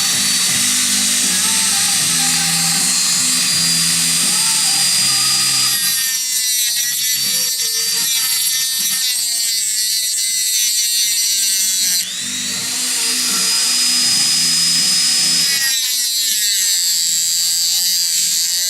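Background music mixed with a high-pitched whine from an electric power tool. The sound changes abruptly three times, about 6, 12 and 16 seconds in.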